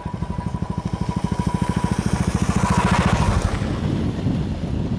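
Small vehicle engine running with an even, rapid pulse, growing louder to a peak about three seconds in and then easing off, as if passing nearby.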